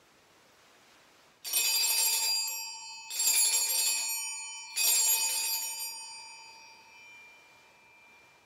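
Altar (sanctus) bells rung in three jangling peals about a second and a half apart, the last dying away slowly, marking the elevation of the consecrated Host at Mass.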